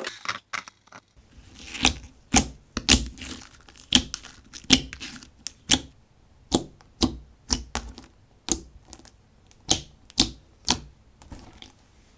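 Slime being pressed and worked by hand, giving a string of sharp, irregularly spaced clicks and pops as air pockets in it burst.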